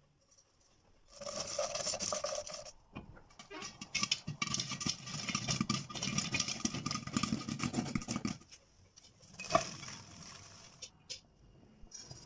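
Popcorn being cooked in a pot: spells of rattling and pattering full of sharp clicks, the longest lasting about five seconds in the middle.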